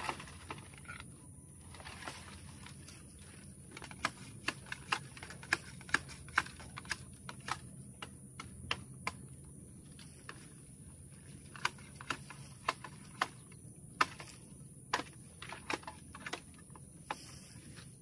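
A run of sharp, irregular knocks and clicks, about one to two a second with short pauses, over a steady high hiss.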